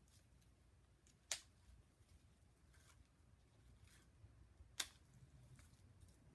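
Two sharp clicks from a baitcasting reel being handled, about three and a half seconds apart, with a few faint ticks between, over quiet room tone.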